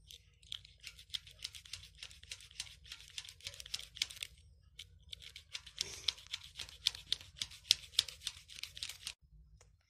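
A blade cutting through a bundle of stiff plastic wire cords: a dense run of small crackling snaps and rustles, with a short lull about halfway through.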